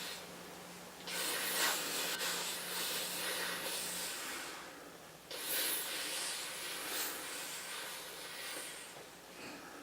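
Ocean surf: waves breaking and washing in twice, each a sudden rush of noise that fades slowly.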